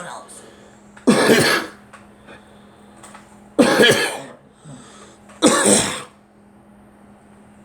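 A person coughing in three bouts about two seconds apart, each bout two quick coughs, a cough that comes with a cold.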